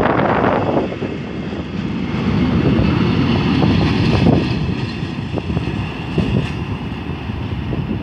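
Container freight train's flat wagons rolling past at close range: a steady rail rumble with scattered clicks and knocks from the wheels running over the track, and wind buffeting the microphone.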